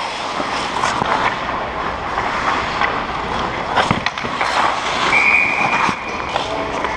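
Ice hockey play heard from inside the net: skate blades scraping and carving on the ice, with sharp clacks of sticks and puck, the loudest just before and after four seconds. A brief high steady tone sounds a little past five seconds.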